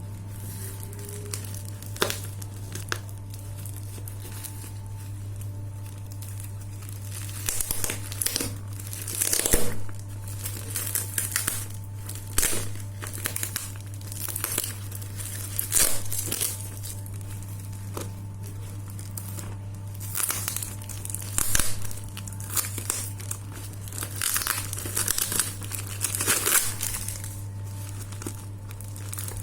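Unboxing packaging being crinkled and torn open in irregular bursts, starting about seven seconds in, over a steady low hum.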